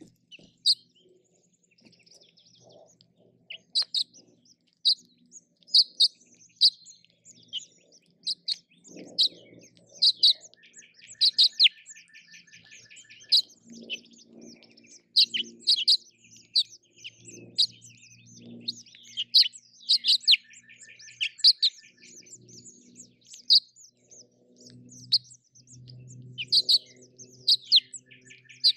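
House finch nestlings begging while the parents feed them: many short, high chirps that now and then run into quick buzzy trills. Softer low rustling sits underneath.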